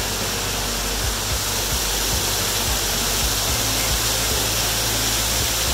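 Machine Falls, a waterfall cascading over a rock face, rushing with a steady, even roar of falling water heard close up.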